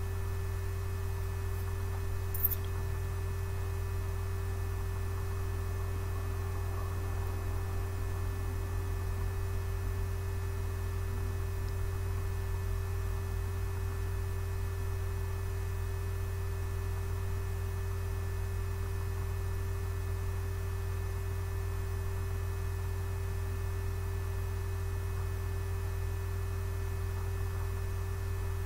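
Steady low electrical hum with a constant faint tone above it, and a single click about two and a half seconds in.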